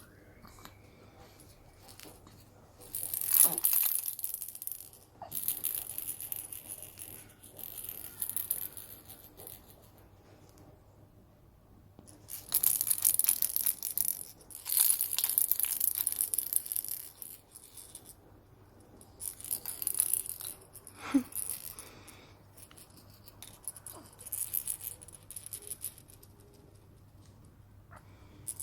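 Repeated bursts of rapid patting and rustling on a newborn's clothing while the baby is burped, with a short sound falling in pitch twice.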